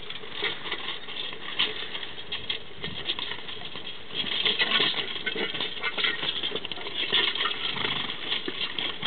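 A pair of draft horses pulling a riding plow past: an irregular patter of hooves, harness and plow working the soil, louder from about four seconds in.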